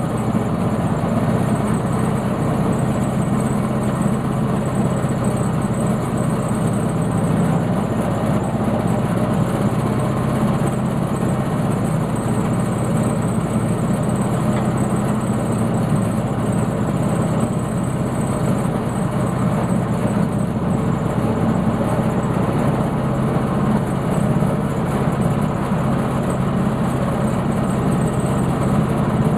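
Sawmill's engine running steadily, as a black walnut log is milled.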